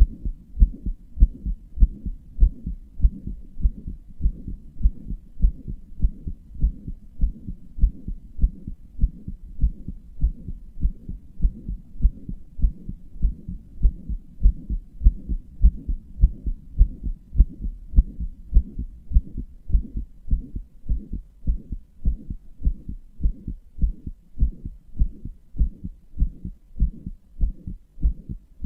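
A human heartbeat, recorded close to the chest: a fast, regular run of low thumps with a steady low hum between them. The owner describes it as a heart murmur.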